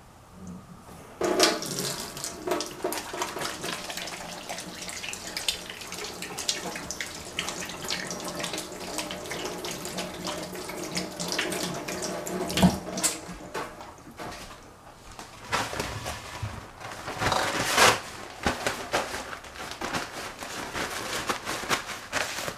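Kitchen tap running water into a sink, starting about a second in, with scattered knocks and clatter on top.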